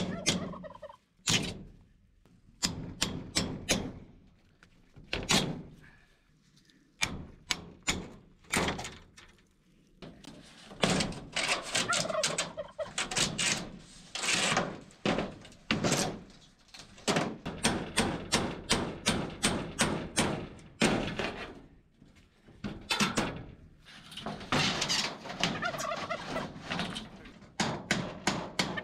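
Hammer driving a chisel against the nail heads of rusty corrugated steel siding, in quick runs of sharp metallic taps with short pauses between, to knock the nails off and free the panels.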